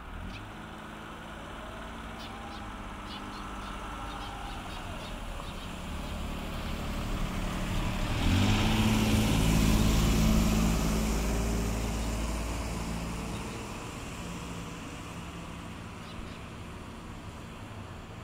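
A small car's engine running close by. About eight seconds in it gets louder and rises in pitch as the car pulls away, with tyre hiss on the snowy road, then it fades into the distance.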